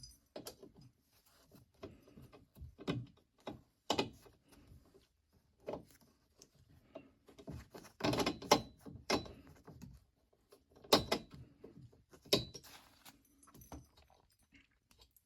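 Screwdriver turning and scraping on a stubborn screw in an AC unit's metal access panel, with irregular metallic clicks and clinks. A burst of clatter comes about halfway through, followed by two sharp knocks.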